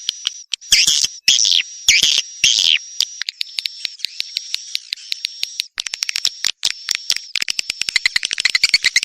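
Swiftlet calls: a string of sharp, buzzy twittering chirps with clicks between them, turning near the end into a fast, rapid run of clicking trills. This is a swiftlet lure call of the kind played to draw the birds to a nesting house.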